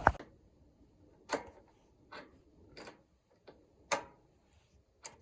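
A few light, separate clicks and knocks, about six spread unevenly over five seconds, as of small objects being handled.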